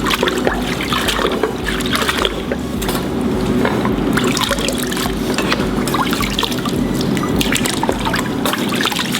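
Water trickling and splashing, with many small clicks and knocks of wet parts being handled, as carburettor parts come out of an ultrasonic cleaner's bath of water and engine-parts cleaner.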